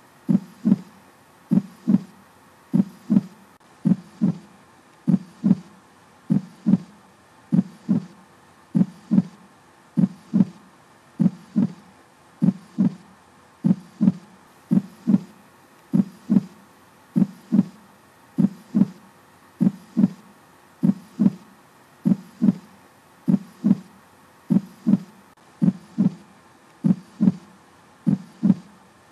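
Heartbeat sound effect on the soundtrack: slow, steady paired thumps repeating about every second and a half, over a faint steady hum.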